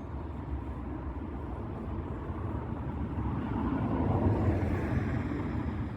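Steady low rumble with a passing vehicle's noise swelling about three seconds in and fading near the end.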